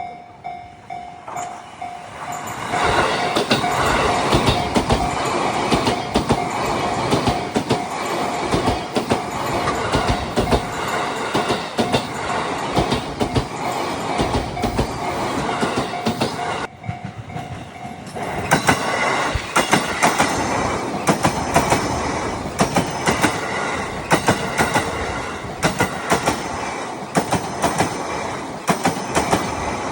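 JR East E233-series electric trains passing at a level crossing, wheels clacking over the rail joints, one train from about two seconds in and another from about eighteen seconds in. The crossing's warning bell rings alongside the first train.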